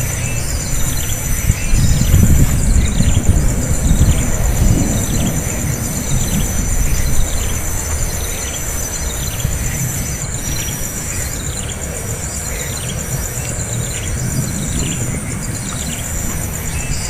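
A bird calling with a short falling chirp, repeated at an even pace a little faster than once a second, over a steady high-pitched insect drone. A low rumble is loudest in the first seven seconds and then fades.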